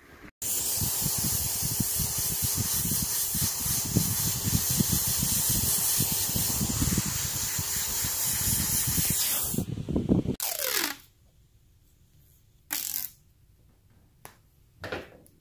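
Airbrush spraying yellow paint in a steady hiss, with irregular low rumbling underneath. It stops about ten seconds in, and two short faint sounds follow near the end.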